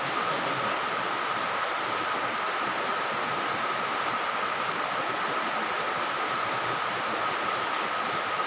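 Steady background hiss with a faint, constant high whine running through it.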